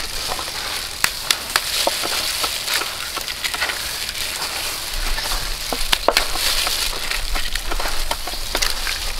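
Eggs being cracked and broken open over a stainless steel bowl of flour: scattered sharp cracks and taps of eggshell, the clearest about a second in and about six seconds in, over a steady hiss.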